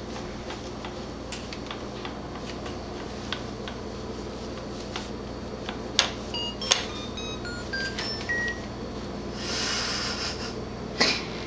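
Plastic baby-jumper toy bar being batted: scattered light clicks and taps, then two sharp clicks about halfway through set off a short electronic tune of beeping notes. A brief rattle follows near the end, then one more sharp click.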